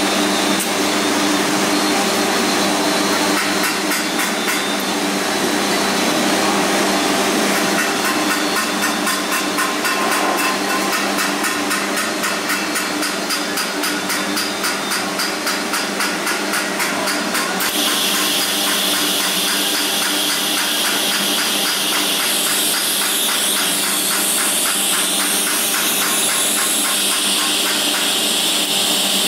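TIG welding on thin titanium exhaust tube segments: a steady drone and hiss from the welding setup, with a rapid, even pulsing for several seconds through the middle.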